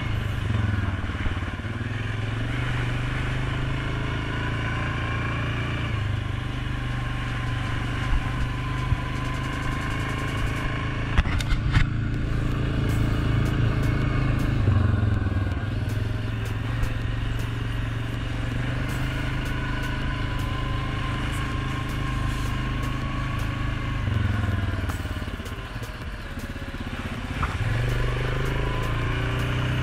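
2019 Suzuki KingQuad 750 ATV's single-cylinder four-stroke engine running at low trail speed, its pitch shifting with the throttle. It eases off about three quarters of the way in and picks back up near the end. A few sharp clacks come near the middle.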